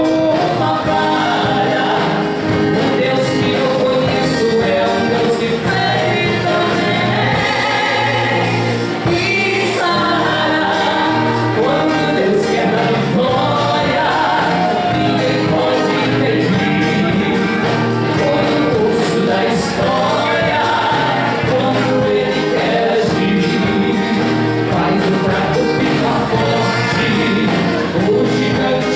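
A woman and a man singing a gospel song as a duet into microphones, over instrumental backing music.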